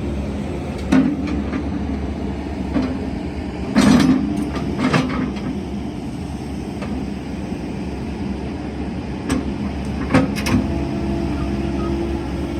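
Excavator's diesel engine running steadily, with sharp metallic knocks and clanks at intervals, the loudest about four seconds in.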